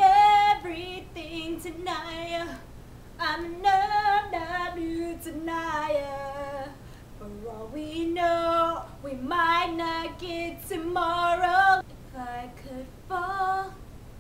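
A woman singing solo without accompaniment: a string of sung phrases with sustained, wavering notes and short breaks between them.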